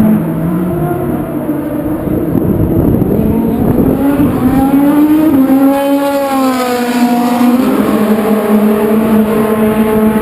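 Endurance race car engines running at speed, with one car passing close about halfway through, its engine note rising and then falling as it goes by.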